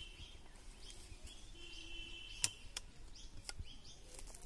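Birds chirping. About halfway through come a few sharp metallic clicks from a break-action 12-gauge shotgun being opened and the shell taken out.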